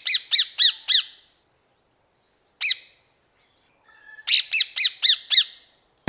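Rose-ringed parakeet giving its shrill, squawking calls, each a short note that arches up and drops. A quick run of about four calls, a single call near the middle, then another quick run of about six near the end.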